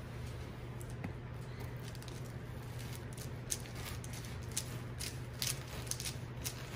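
Knife cutting down through a chilled slab of Rice Krispies treats on parchment paper: scattered soft crackles and crunches of the puffed rice, more frequent in the second half, over a steady low hum.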